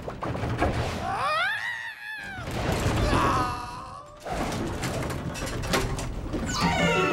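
Slapstick cartoon soundtrack: a wordless pitched glide rises and then falls about a second in, with more pitched sounds and falling glides later, over clatter and thuds.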